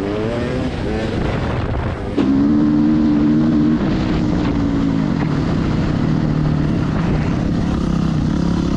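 Dirt bike engines at speed: revs rising in the first second, then, after a cut, a Kawasaki KX450F four-stroke motocross engine holding high revs, its pitch dropping in steps around four and five seconds in, with wind noise on the microphone.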